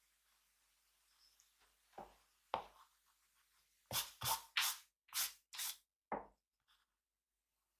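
Drawing strokes on paper: two single strokes about two seconds in, then a quick run of six short strokes.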